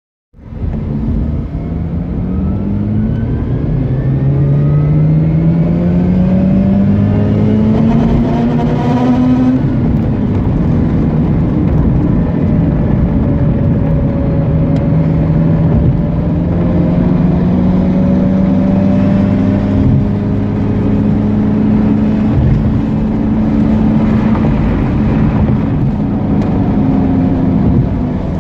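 Mazda RX-8's twin-rotor Renesis rotary engine accelerating, its note rising steadily for about nine seconds. The revs drop at about 9.5 s, then the engine runs at fairly steady revs with small rises and dips.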